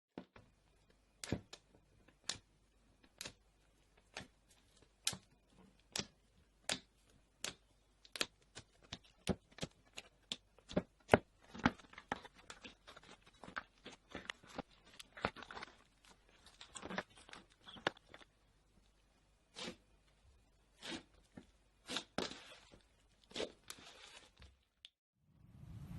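Slime being squeezed and poked by hand, making a series of sharp pops and clicks, about one a second at first, then coming faster with crackly stretches from about halfway.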